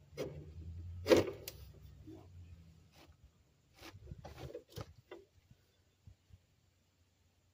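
A run of knocks, clunks and scrapes from something being handled, the loudest about a second in, over a low hum that dies away after a couple of seconds; the knocks stop about five seconds in.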